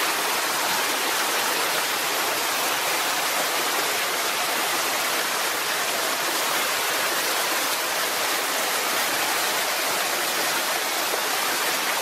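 Small forest waterfall falling down a rock face and splashing into a shallow pool: a steady rush of water.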